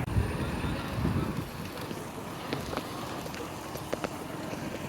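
Roadside traffic noise: a low vehicle rumble that eases after the first second or so, with faint voices and a few short clicks.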